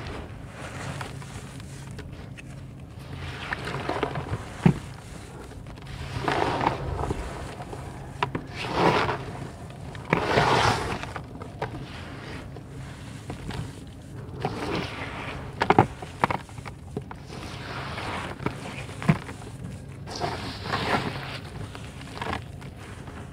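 Hands squeezing and crumbling wet, gritty red dirt in a tub: irregular crunchy, squelching bursts every couple of seconds, with a few sharp clicks.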